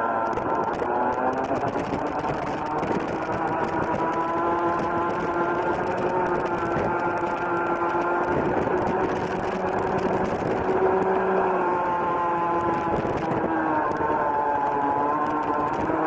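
Rotax Junior Max 125cc single-cylinder two-stroke kart engine running at high revs, heard from the driver's seat. Its pitch climbs steadily as the kart accelerates, drops about thirteen seconds in as the kart slows for a corner, then rises again near the end.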